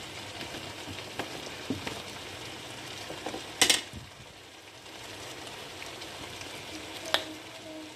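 Boiled peanut shells being cracked and handled: a few sharp clicks and cracks, the loudest about halfway through and another near the end, over a steady hiss.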